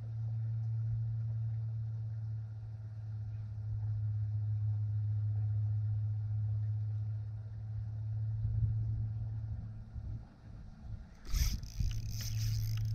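Small fishing skiff's motor running with a steady low hum as the boat creeps along. It drops away briefly about ten seconds in, with a short burst of knocking and handling noise, then the hum starts again.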